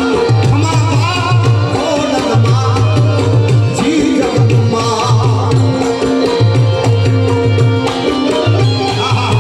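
Live Gujarati devotional folk music: tabla and a repeating bass figure keep a steady rhythm under a sung melody.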